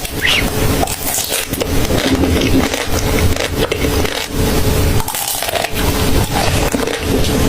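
Close-up crunching and chewing of food, a steady run of irregular crackly crunches.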